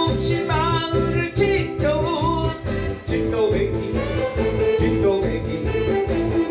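A man singing a Korean trot song over a backing track with a steady beat.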